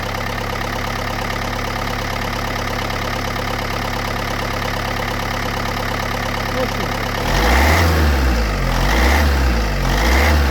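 Diesel engine idling steadily, then revved briefly three times from about seven seconds in. The owner hears a noise from the running engine and asks what fault it points to.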